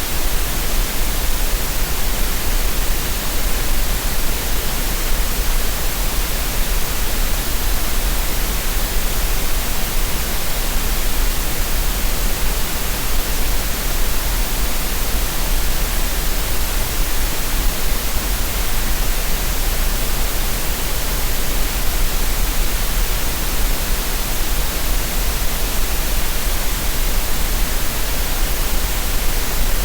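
Steady synthetic green noise: an even, unbroken hiss with a strong deep low end, unchanging throughout, used for relaxation and tinnitus masking.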